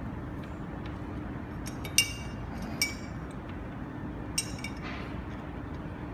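A metal fork clinks against the neck of a glass milk bottle three times as it pushes lit paper down into the bottle. Each clink rings briefly; the first is the loudest.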